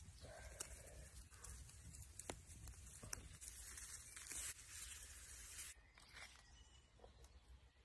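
Faint rustling handling noise with a few sharp clicks, and a longer stretch of rustling or tearing from about three seconds in that stops a little under six seconds in.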